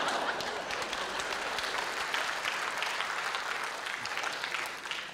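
Audience applauding. The clapping is loudest at the start and dies away toward the end.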